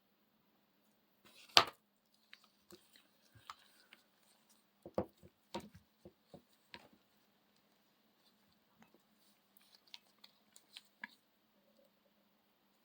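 Scattered sharp clicks and snips of hand work on a cordless drill battery pack, with one loud click about a second and a half in and a cluster of clicks in the middle.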